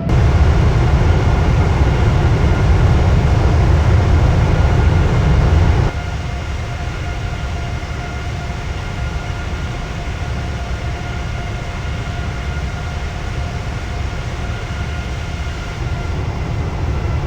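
Boeing 787 aircraft noise: a steady engine hum with a few held tones over a heavy low rumble. The rumble is loudest for about the first six seconds, then drops suddenly to a lower steady level.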